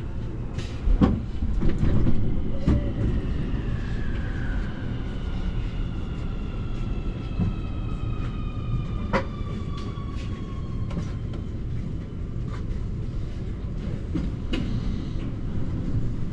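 A Nuremberg U-Bahn train pulling in on the neighbouring platform track, its electric drive whine falling slowly in pitch as it brakes to a stop, over a steady low rumble. A few sharp knocks come about one, three and nine seconds in.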